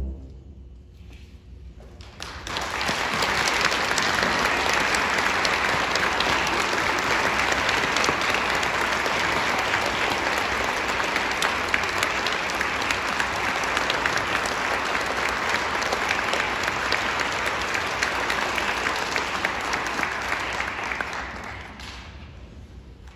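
Audience applauding after a concert band's piece ends: a brief hush, then clapping swells about two seconds in, holds steadily, and fades out near the end.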